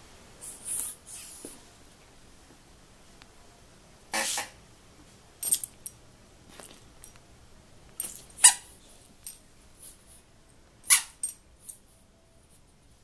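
A red rubber fish squeak toy squeaking in short, irregular bursts as a Pembroke Welsh Corgi bites and paws it, with lighter clicks between the squeaks.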